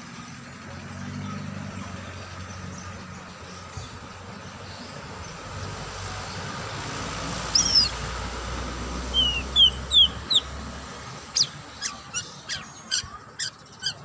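White-rumped shama calling: a falling whistle about halfway through, three short whistled notes a couple of seconds later, then a quick run of sharp clipped notes, about two or three a second, near the end, over steady background noise.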